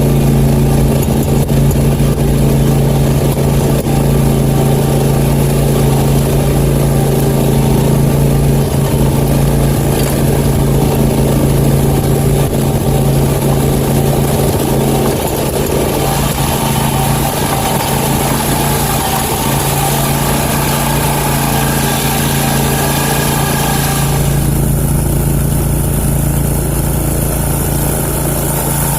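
Country Clipper zero-turn lawnmower's engine running steadily under way at an even pitch. The higher hiss over the engine drops away about five seconds before the end.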